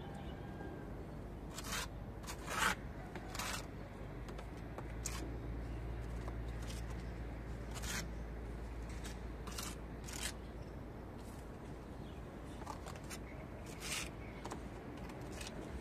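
Small trowel scooping cement plaster from a plastic bowl and scraping it onto a crumbling wall, in about ten short, irregular scrapes.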